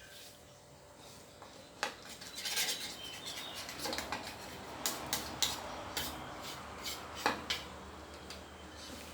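A utensil clinking and scraping against a pot while ingredients are stirred. Irregular knocks and scrapes begin about two seconds in, with several sharp clinks in the middle and later part, then it quietens near the end.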